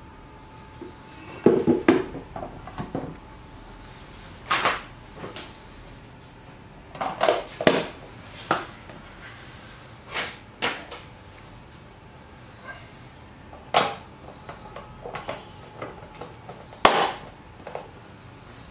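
Hard plastic clacks and knocks from a plastic vegetable chopper being handled: its hinged lid and container set down and fitted together on a table. The knocks come singly and in short clusters, scattered throughout, with one of the loudest near the end.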